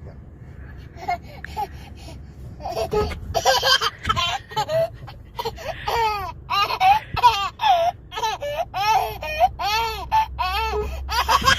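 A baby laughing in a quick run of short, high-pitched bursts that starts about three seconds in and keeps on.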